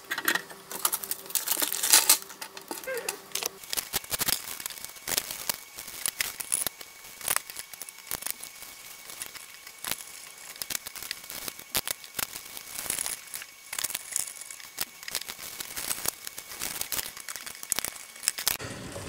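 Hands fitting an AR XA turntable's sprung metal subchassis into its wooden plinth while the new suspension springs go in: scattered small clicks and knocks of metal parts, with paper crinkling.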